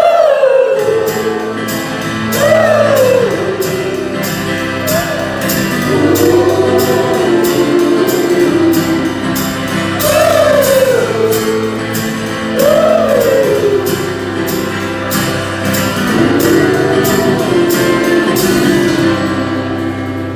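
Live indie folk band music: long wordless sung notes rise and fall in arcs over held chords, with a steady high percussion beat ticking throughout.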